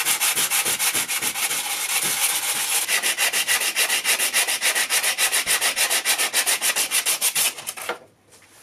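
Sandpaper rubbed by hand in fast back-and-forth strokes, about six or seven a second, over the raised lettering on the cast-iron body of a Record No. 3 vice. It stops shortly before the end.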